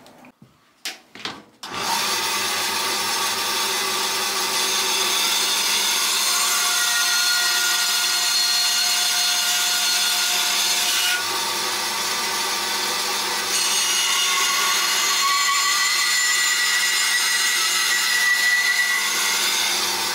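A few short knocks of timber being handled, then a Record Power bandsaw running from about two seconds in and cutting notches in softwood pieces, a steady sawing sound whose tone shifts a little as the wood is fed through the blade.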